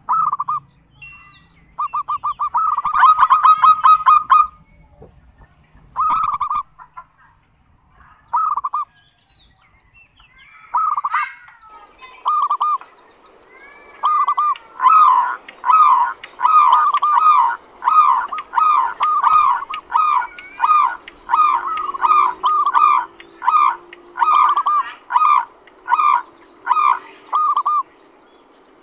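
Zebra dove (perkutut) giving the 'kerot' call: short repeated cooing notes, first a quick burst and a few scattered calls, then from about halfway a steady run of about two calls a second. It is a call that keepers play to set other zebra doves calling and to train young birds.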